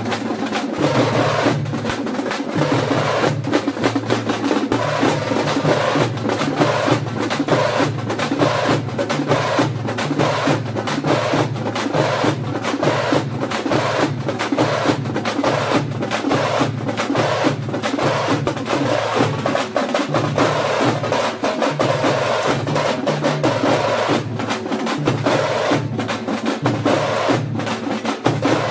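An ensemble of thamate, the stick-beaten frame drums of Karnataka, played together in a fast, dense, continuous rhythm with loud strokes packed closely together.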